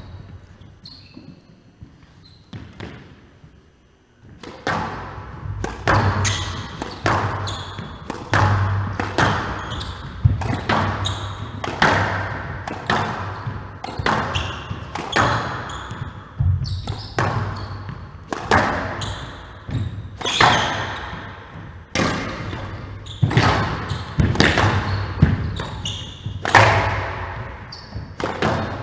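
Squash rally: the ball is struck by rackets and smacks off the court walls again and again, each hit a sharp crack with a short echo in the hall. The hits start about four seconds in and keep coming at an uneven pace of roughly one a second.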